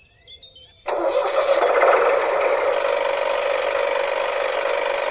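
Faint bird chirps, then about a second in a steady, even mechanical running noise starts abruptly and carries on.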